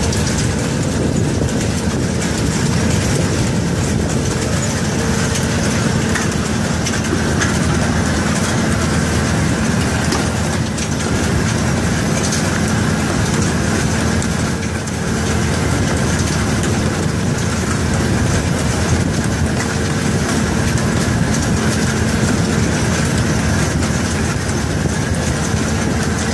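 Watermelon harvester's conveyor machinery running, a steady mechanical noise with a faint steady hum.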